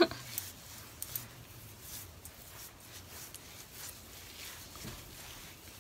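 Fingers working leave-in conditioner through damp curly hair, making soft, irregular rustling strokes, with a brief sharp click at the very start.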